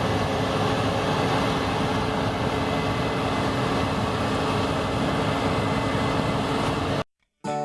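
Case IH 8230 combine harvester running steadily while harvesting wheat, a dense, even machinery noise with a constant hum. It cuts off abruptly about seven seconds in, and music begins half a second later.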